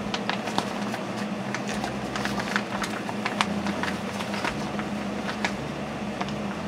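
Drysuit fabric rustling, with many small irregular clicks and crackles as a P-valve pad is pushed and worked by hand into the hole in the suit, over a steady low hum.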